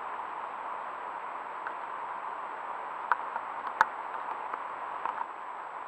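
Steady rushing of a woodland stream swollen by rain, with a few sharp clicks or snaps about three and four seconds in, the loudest one near four seconds.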